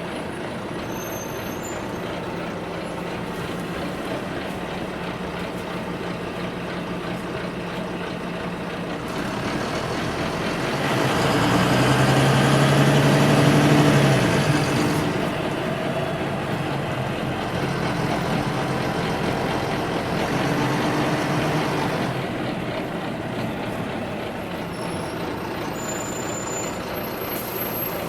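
City bus interior while riding: a steady run of engine and road noise. The engine grows louder from about ten seconds in, peaks a few seconds later, then settles back down.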